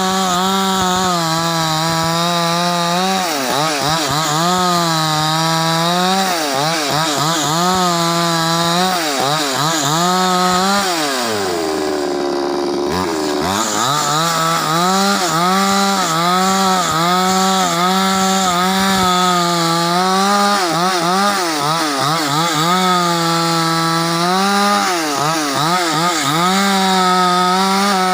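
OGAWA two-stroke chainsaw running at full throttle while ripping hardwood lengthwise, its engine speed wavering and dipping as the chain bogs in the cut. About halfway through it drops to idle for a couple of seconds, then revs back up and cuts on.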